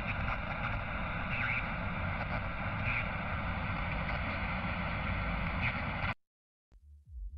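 Steady engine and road noise inside a moving car's cabin, cutting off abruptly about six seconds in. Near the end, electronic music with a thudding beat starts up.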